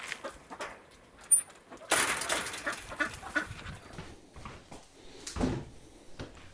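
Domestic decoy duck hens quacking in short, irregular calls, mixed with a sharp click about a second in and a low thump near the end.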